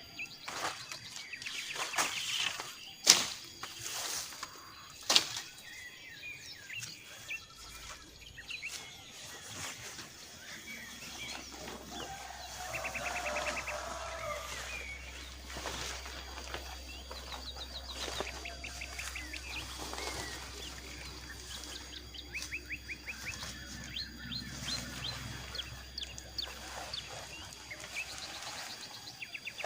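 Forest birds chirping, with several bursts of rapid trilled notes. Two sharp knocks come in the first few seconds.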